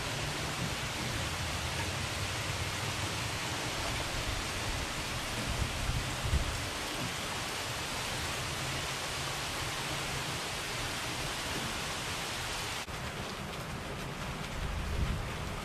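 Steady rain falling, an even hiss, with two brief low rumbles about six seconds in and near the end. The hiss turns a little duller about thirteen seconds in.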